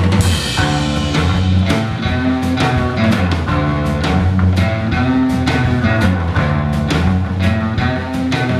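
Live roots-rock band playing an instrumental passage: guitar over a walking bass line and drums keeping a steady beat.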